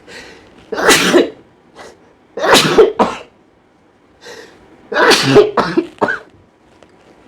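A person sneezing three times, loud short bursts about two seconds apart, set off by tickling the nose with long grass.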